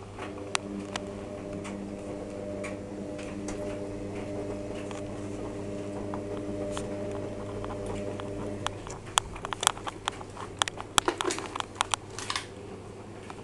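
Washing machine in the main wash of a 95 °C boil-wash cycle: the drum motor runs with a steady pitched hum, stops about nine seconds in, and a run of sharp clicks and taps follows.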